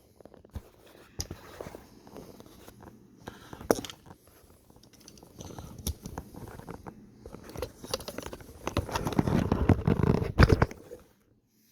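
Handling noise from a camera being positioned and secured: scattered clicks, knocks and rubbing, busiest and loudest from about eight to ten and a half seconds in, then the sound cuts off suddenly near the end.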